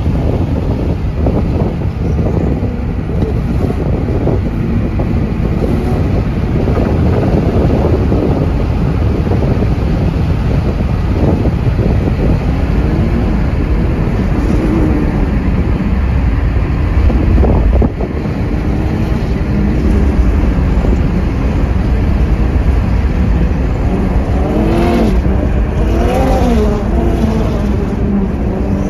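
Funco FD9 sand car's twin-turbo LS V8 running hard under acceleration, over a heavy low rumble. Near the end the engine note rises and falls several times as it revs through the gears.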